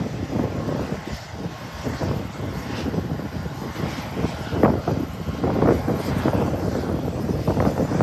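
Airfield noise: a continuous aircraft engine rumble, with wind buffeting the microphone in irregular gusts.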